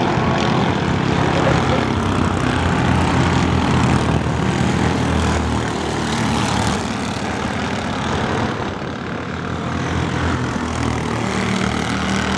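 Mini Cup race car engines running around the oval in a steady, loud drone that eases a little past the middle and builds again.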